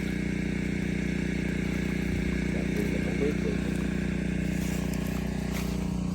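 Steady hum of a motor running at a constant speed, unchanging throughout.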